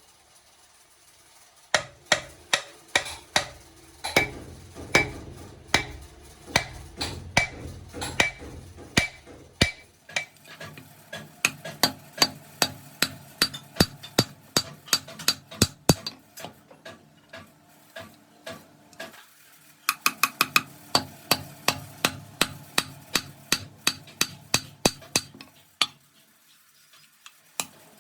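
Hammer blows on metal, about two to three a second, each strike ringing briefly, starting about two seconds in and falling quiet near the end; part of repair work on heavy-truck brake linings.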